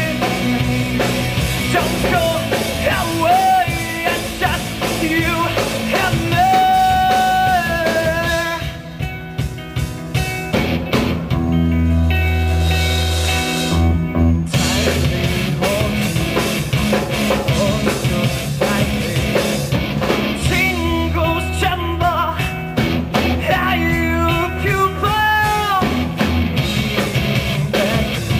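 Live rock band playing a song: lead vocals over electric guitar, bass guitar and drums. About a third of the way in the band drops to a sparser passage of held chords for several seconds, then the full band comes back in and the singing resumes.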